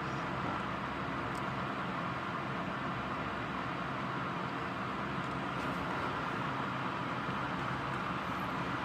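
Rain falling steadily, an even rushing hiss with a few faint ticks and no thunder.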